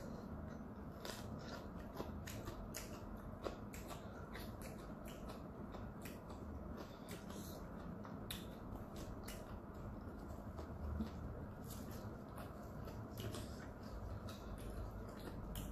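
Close-up chewing of a bite of steamed dumpling: irregular soft wet mouth clicks and smacks, a few a second, over a faint steady low hum.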